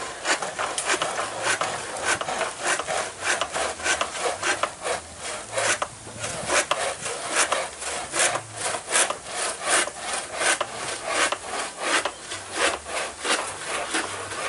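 Hand saw cutting through a wooden plank in steady, rhythmic strokes, about two a second.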